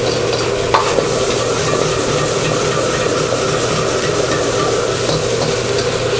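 Minced pork sizzling as it is stir-fried in a wok with a metal ladle, frying down until its moisture cooks off, over a steady hum from the gas wok burner. One sharp clank of ladle on wok comes about a second in.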